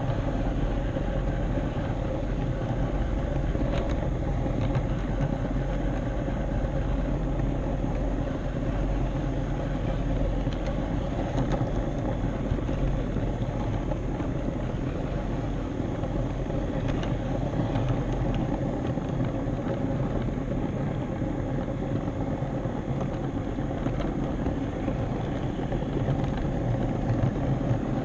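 HO scale model train running along the layout's track, carrying the camera: a steady rolling rumble with a faint, even motor hum.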